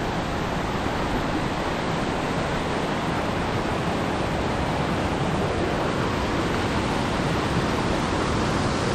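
Waterfall in spate, swollen with recent rain, rushing with a loud, steady noise.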